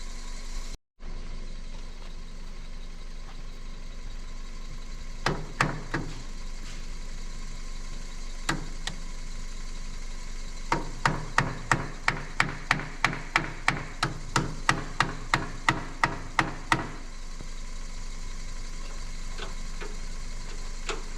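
Hammer blows on metal: a few single ringing knocks, then a fast run of about twenty strikes at roughly three a second, over a steady low hum.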